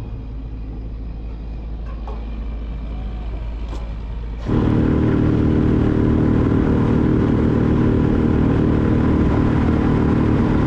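A small fishing boat running on its electric trolling motor, a steady motor hum mixed with water and wind noise. About four and a half seconds in, the hum steps up abruptly and runs louder and steady, as if the motor were switched to a higher speed.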